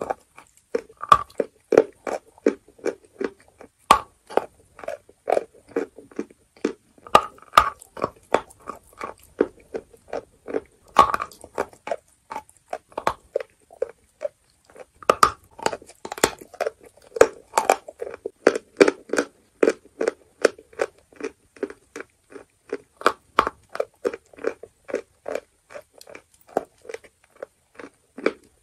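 Lumps of chalk being bitten and chewed: a steady run of short, dry crunches several times a second, broken by a few sharper, louder bites.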